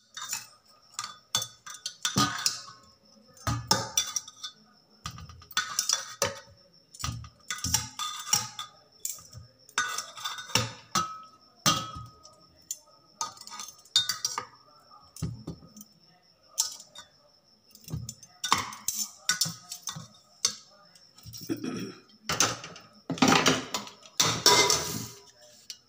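A steel spoon knocking and scraping against a pressure cooker and a steel plate as boiled potatoes are lifted out and dropped onto the plate: a run of irregular metal clinks and knocks, louder near the end.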